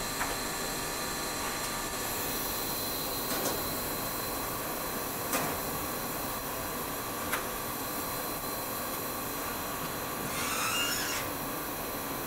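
Solder-paste stencil printer running as its squeegee prints paste onto a PCB panel: a steady mechanical hiss and hum, a few sharp clicks, and a short rushing noise near the end.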